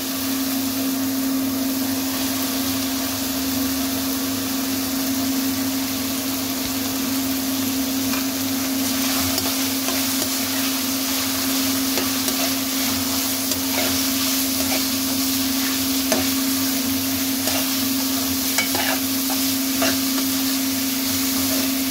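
Diced chicken and shredded carrots sizzling in ghee in a metal wok while a slotted metal spoon stirs and scrapes against the pan, giving scattered clicks. A steady low hum sits underneath.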